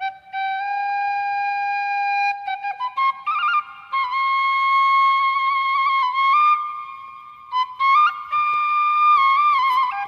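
Background music: a flute playing a slow melody of long held notes, first one low note, then higher notes with small stepping turns.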